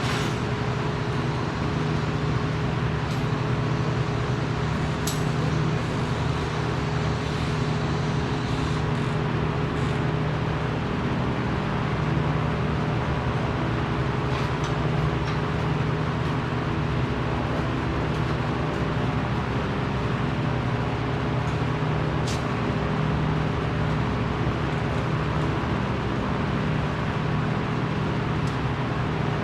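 Steady machine hum with a constant low drone and a few faint clicks.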